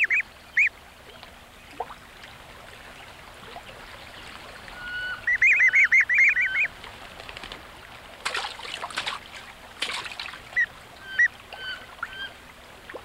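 Wood ducklings peeping in quick runs of high calls, with a long run about five seconds in. Splashes follow as ducklings drop into the pond, then a few single peeps.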